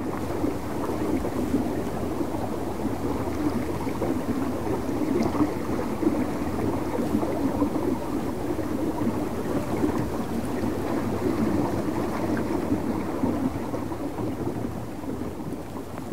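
Steady rushing noise of a small wooden half-decker sailing under way, with no engine: water running along the hull and wind. It eases off a little near the end.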